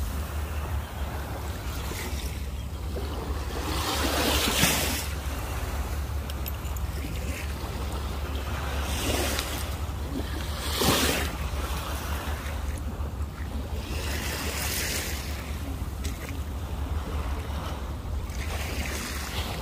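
Sea water washing and lapping in small waves, swelling into louder hissing washes every few seconds, with wind rumbling on the microphone.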